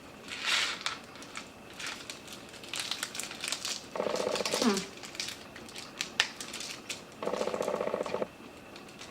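Chocolate bar wrapper crinkling and rustling in the hands, in short scattered crackles. Two short hummed sounds from a person, one falling in pitch about four seconds in and one steady about seven seconds in.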